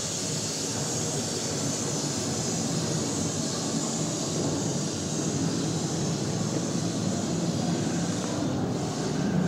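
Steady rushing background noise with no clear pitch, with a few faint knocks near the end.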